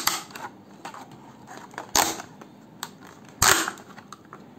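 Clear plastic blister packaging being flexed and pulled open by hand, giving sharp plastic cracks with smaller crackles between them. The loudest cracks come about two seconds in and again about three and a half seconds in.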